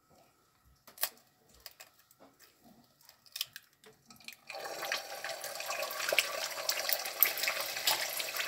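A few light clicks as an egg is cracked open over a wok, then about four and a half seconds in the egg drops into hot oil and starts sizzling steadily.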